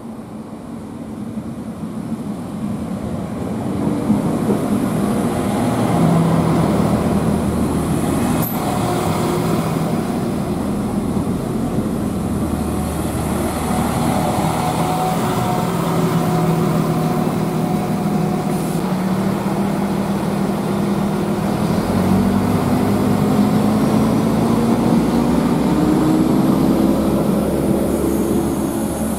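Northern Ireland Railways Class 4000 diesel multiple unit pulling into the platform, getting louder over the first few seconds as it comes in. Its underfloor diesel engines hum steadily while it stands, then rise in pitch as it pulls away near the end.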